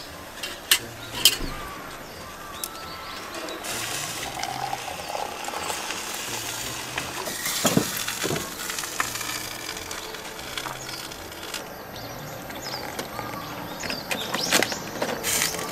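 Food frying with a hissing sizzle, strongest in the middle, with a few sharp clinks of utensils, over soft background music.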